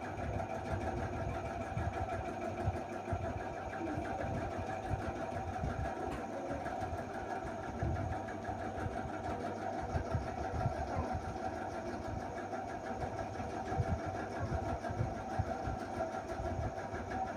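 Steady hum of a running motor with a constant whine, over irregular low rumbling.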